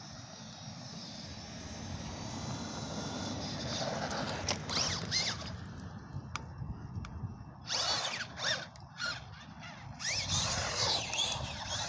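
Electric motor of a small Traxxas Teton RC truck whining in short bursts as the throttle is blipped, the pitch rising and falling with each burst, with clusters about four seconds in, near eight seconds and again near the end. A steady rushing noise fills the first few seconds.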